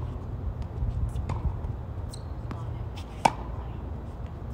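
Tennis ball hits and bounces in a rally on a hard court: light, distant pops about one to three seconds in, then one sharp, loud racket strike about three seconds in. A steady low hum runs underneath.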